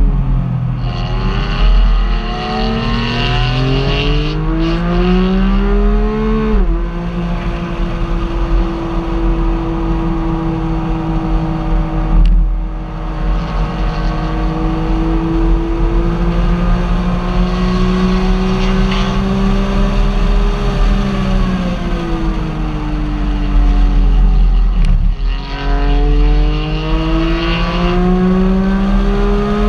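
Car engine pulling under way. Its pitch climbs for several seconds and drops abruptly, as at an upshift, then holds steady for a long stretch, sinks as the car slows, and climbs again near the end, all over a constant low rumble.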